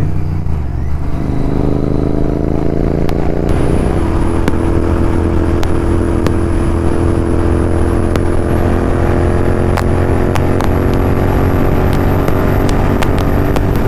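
Royal Enfield Continental GT 650's 648 cc parallel-twin engine running through Red Rooster aftermarket exhausts at highway speed. The engine note climbs over the first few seconds, then holds steady under sustained throttle, with heavy wind rumble on the microphone.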